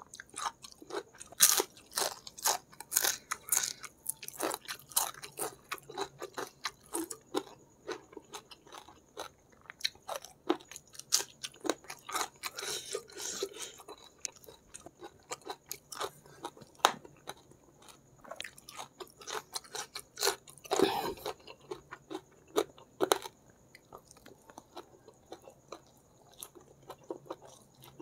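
A person chewing food by mouth, with many sharp crunches coming several times a second and one louder crunch about two-thirds of the way through.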